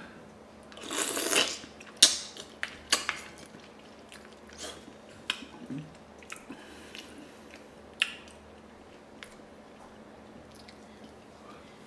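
Close-up eating and tableware sounds: a brief noisy mouth sound about a second in, then several sharp clacks as a wooden spoon and braised chicken feet are handled in a ceramic bowl, with scattered small clicks after.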